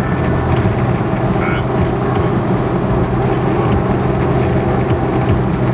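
Steady engine drone and road noise heard inside a vehicle's cabin while it cruises at constant speed on a rough two-lane highway.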